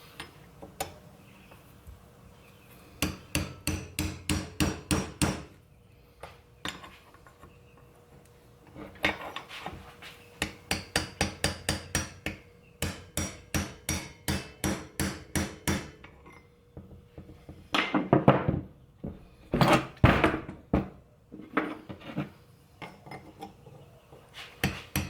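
Hammer tapping a part into place on a Ford truck steering column being reassembled: several runs of quick, even taps about five a second, with a few heavier blows about two-thirds of the way through.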